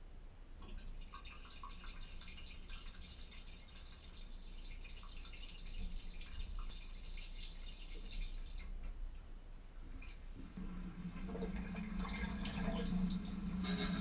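Water trickling and dripping inside the tub of a Thermador Emerald DWHD440MFM dishwasher. About ten seconds in, a steady low hum from the wash pump starts, and the water spray builds toward the end as the wash begins.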